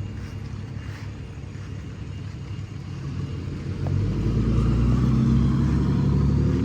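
A motor vehicle's engine running close by, growing louder about four seconds in and staying loud.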